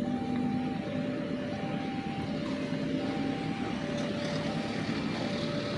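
Railway level-crossing warning alarm sounding, an electronic two-tone signal whose two pitches alternate about every three-quarters of a second, warning that a train is approaching. Under it runs a steady hum of road traffic.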